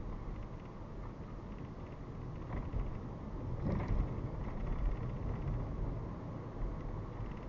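Car driving on a suburban road, a steady low rumble of engine and tyre noise picked up by a dashcam inside the car, swelling a little about halfway through.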